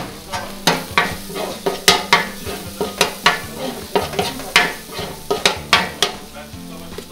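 A metal spatula scrapes and clacks against a large steel tantuni pan about three times a second, stirring meat frying in oil. The strokes ease off near the end, and a steady sizzle runs under them.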